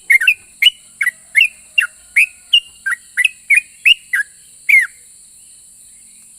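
Yellow-vented bulbul (trucukan) singing a fast string of short, loud whistled notes that each slide downward, about three a second, stopping about five seconds in. A faint steady hiss runs underneath.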